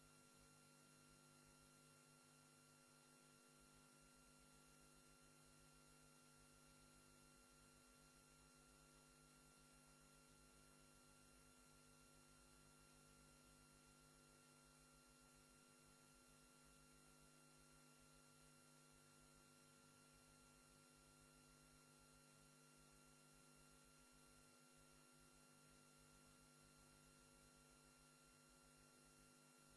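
Near silence: a faint, steady hum of several fixed tones over light hiss, unchanging throughout.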